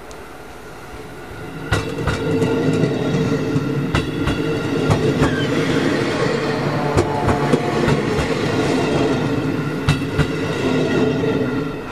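JR Hokkaido 711 series AC electric multiple unit running past along the platform: a steady rumble that swells about two seconds in, with its wheels clacking over rail joints in pairs. The sound fades near the end as the last car goes by.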